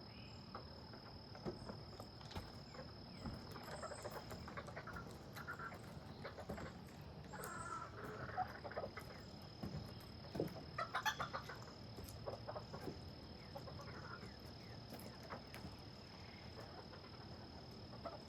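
Chickens clucking faintly in short, scattered calls, over a steady high insect trill.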